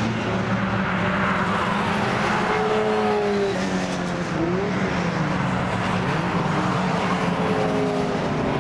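Classic sports cars running past one after another on a race circuit straight, engines under power. Their notes keep overlapping, each sliding down in pitch as a car goes by.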